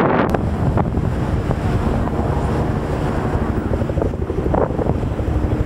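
Wind buffeting the microphone, a heavy, uneven low rumble.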